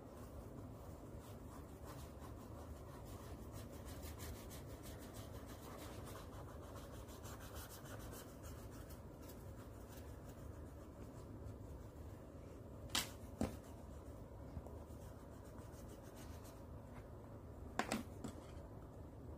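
Faint rubbing and scratching of a paintbrush scrubbing thick paint onto sketchbook paper in repeated short strokes. Two sharp clicks come a little past halfway, and another pair near the end.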